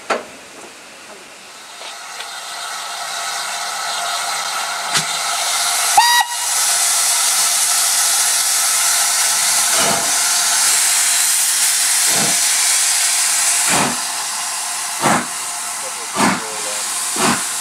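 Southern Railway 'King Arthur' class 4-6-0 No. 30777 'Sir Lamiel' starting a train. Its open cylinder drain cocks hiss loudly, a short whistle sounds about six seconds in, and from about ten seconds the first exhaust beats come slowly and quicken as it pulls away.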